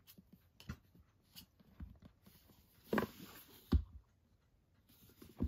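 Boxed Blu-ray collector's set being handled and turned over: scattered light knocks and rubs, loudest about three to four seconds in.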